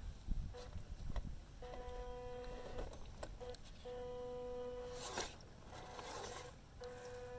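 Small electric drive motor of a 1/10-scale WPL D-42 RC van whining at a steady pitch in several spurts as it crawls slowly over rock, with a short crunch of tyres on rock about five seconds in.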